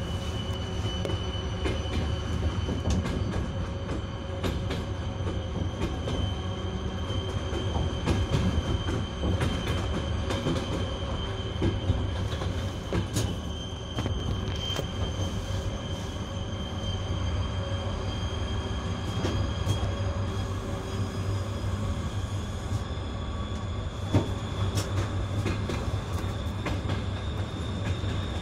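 TEP70 diesel locomotive's 16-cylinder 2A-5D49 engine working under load as it accelerates a passenger train up a grade. It makes a steady low drone with a high whine that rises slowly. Wheels click irregularly over rail joints.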